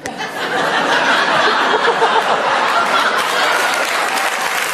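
Audience laughing and clapping, starting abruptly and going on steadily.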